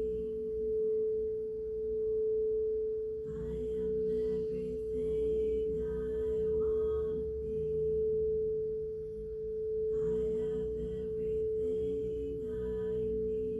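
A singing bowl holding one steady, pure tone that swells and fades about every second and a half, with fainter, shifting tones coming and going underneath.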